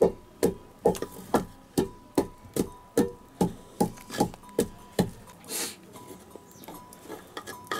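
Pestle pounding in a small mortar, about a dozen steady, evenly spaced strikes at roughly two and a half a second. The strikes stop about five seconds in, followed by a short rustling scrape and a few light clicks.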